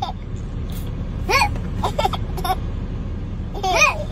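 A baby laughing in three short bursts, about a second in, two seconds in and near the end, over the steady low rumble of the car she rides in.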